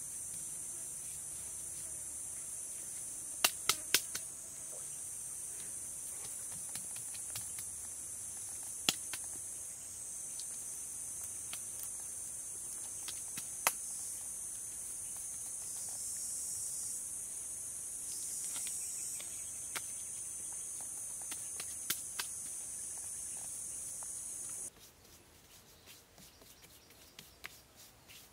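Steady high-pitched buzzing of insects in the forest, which cuts off suddenly near the end, with a few sharp clicks scattered through it, three in quick succession about three and a half seconds in.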